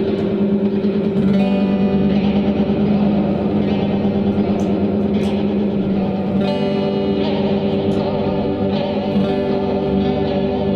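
Electric guitar played through an Electro-Harmonix Grand Canyon delay, with an 8-Step Program sequencer stepping the delay's expression-controlled setting. Held notes ring on with echo repeats, and new strums come about a second in, around six seconds and near nine seconds.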